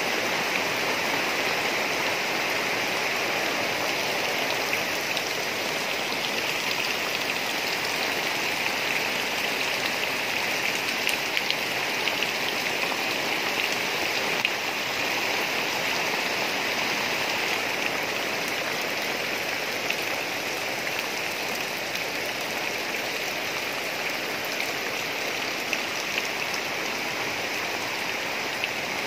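Heavy rain falling steadily on dense garden foliage, a constant hiss of rain with now and then a sharper drop ticking close by.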